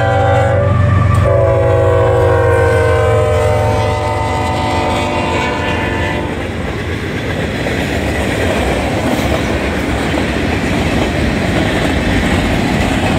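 Union Pacific diesel locomotive's multi-note horn sounding at a grade crossing: a blast that breaks off about a second in, then a long blast whose pitch falls slightly as the locomotive passes, over the low hum of the engines. The horn stops about six seconds in, and freight cars then clatter over the crossing.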